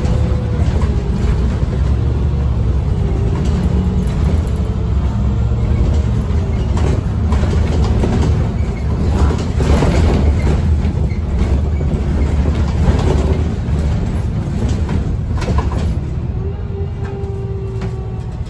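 Irisbus Agora Line city bus with a Voith automatic gearbox, heard from the passenger saloon while driving: a loud diesel engine and driveline rumble with a faint whine that shifts in pitch, over rattles and knocks from the body and fittings.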